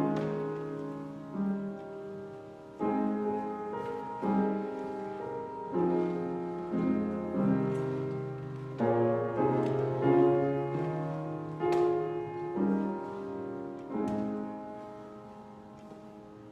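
Solo piano playing slow chords, each struck and left to ring; the last chord, about fourteen seconds in, fades away.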